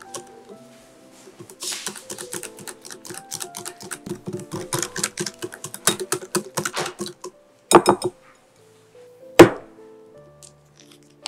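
Wire whisk clicking rapidly against a glass bowl as a batter of eggs, milk and flour is beaten, over soft background music. Near the end come two loud knocks, the second the loudest.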